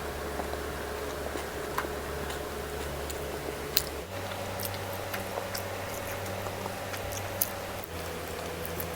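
Close-up eating sounds of someone chewing, with short mouth clicks now and then and two sharper clicks about 4 and 7.5 seconds in, over a steady low hum that changes abruptly twice.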